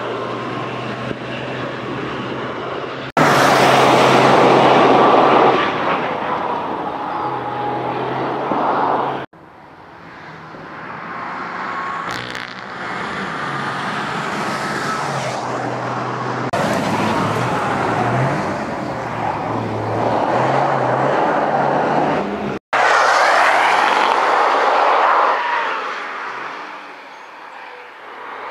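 Toyota GR Yaris's turbocharged three-cylinder engine driven hard through corners, its pitch rising and falling with gear changes and lifts. It comes in several passes joined by sudden cuts, loudest about three seconds in and again near twenty-three seconds.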